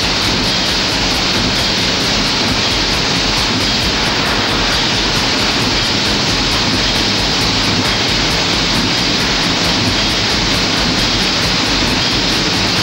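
Steam winding engine running: a steady, loud rushing hiss with a faint low hum beneath.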